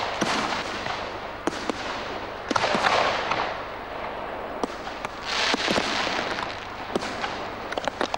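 Firecrackers going off in waves of rapid crackling pops, with single sharp bangs scattered between the waves.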